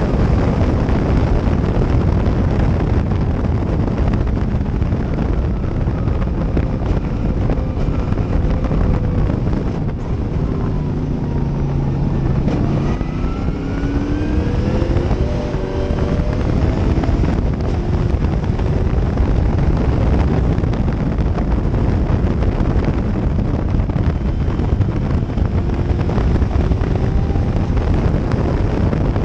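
Gentry Cobra racing car's engine under hard load, heard from the open cockpit, with wind buffeting the microphone. Partway through, the engine note drops off for a corner and then climbs again as the car accelerates.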